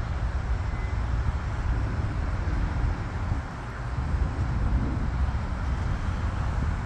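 Steady outdoor rumble of road traffic mixed with the distant engines of a small jet running as it lines up on the runway for takeoff.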